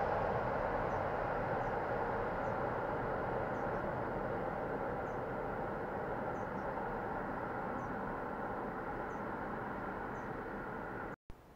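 Freight train rolling away along the track, a steady rumble of wheels on rails slowly fading as it recedes. The sound cuts off abruptly near the end.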